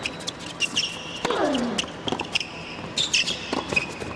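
Tennis rally on an indoor hard court: sharp pops of racket strings hitting the ball, with rubber-soled tennis shoes squeaking on the court between shots. One squeak falls in pitch about a second and a half in.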